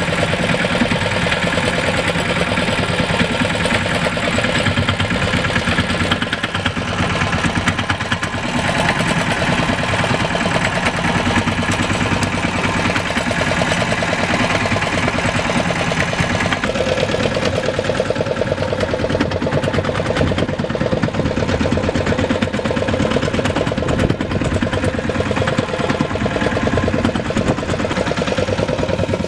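Fishing boat's engine running steadily, a continuous drone whose tone shifts slightly about halfway through.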